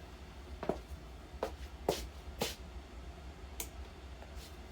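Hampton Bay Hawkins ceiling fan coasting down after being switched off, with a low steady hum and about five light clicks, some with a brief ring.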